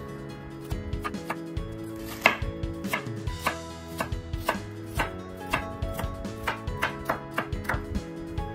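Chef's knife dicing red bell pepper on a wooden cutting board: a run of quick, uneven knocks of the blade on the wood, about three a second, one stroke about two seconds in louder than the rest.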